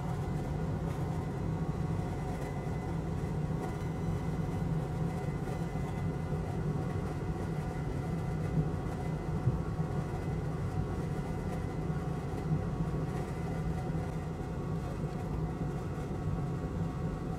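Steady low mechanical hum, like a fan or motor running, with a faint constant high whine above it.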